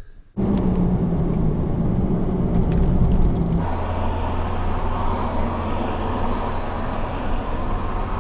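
Toyota pickup's engine idling steadily, heard from inside the cab; the hum changes abruptly to a lower pitch about three and a half seconds in.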